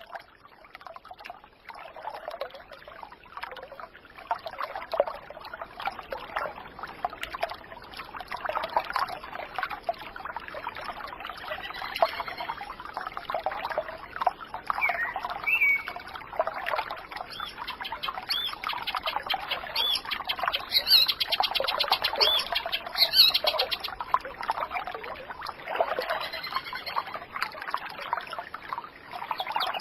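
Running water trickling and splashing, like a small brook, with birds chirping over it. The bird calls come in short bunches, mostly in the second half.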